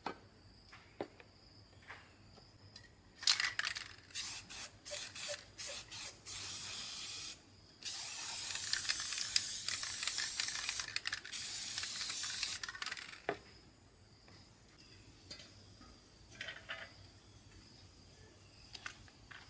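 Three bursts of pressurised spray hissing, the middle one about three seconds long and the others about a second each, among scattered light clicks and knocks of parts being handled.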